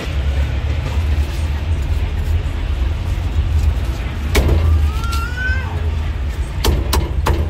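Cleaver chopping roast duck on a round wooden chopping block: a single chop a little over halfway, then about four quick chops near the end. A steady low rumble of street traffic runs underneath.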